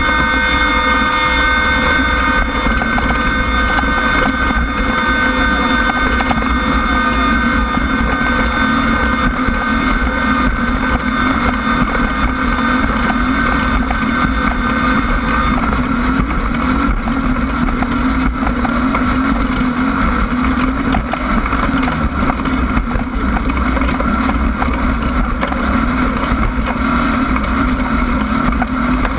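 Off-road race vehicle's engine running at a steady speed, with wind noise on the microphone. A set of high whining tones fades out about halfway through.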